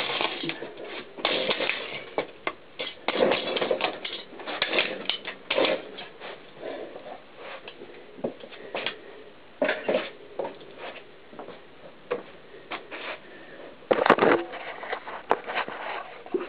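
Brittle plastic cassette shells cracking and crunching under a mountain bike's knobby tyre as it rolls over and grinds the broken pieces. Irregular snaps and crackles, with a louder burst of crunching near the end.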